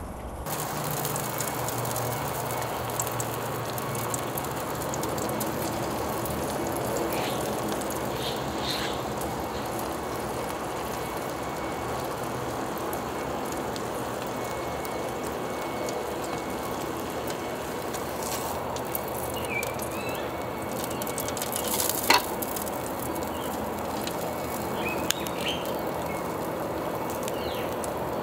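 Pork slices sizzling on the foil grill plate of a disposable cardboard charcoal grill: a steady frying hiss. A few short bird chirps and one sharp click a little past three-quarters of the way through.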